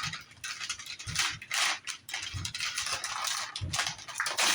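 Cardboard and packaging being handled and torn open in a string of short, irregular rustling and ripping bursts, with soft knocks of the box.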